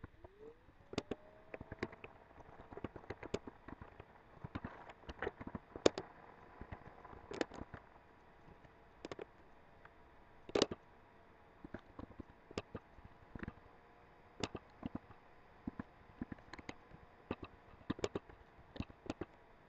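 Computer keyboard being typed on: irregular key clicks, a few a second, with pauses between bursts. A faint hum sits underneath; it rises in pitch in the first second, then holds steady.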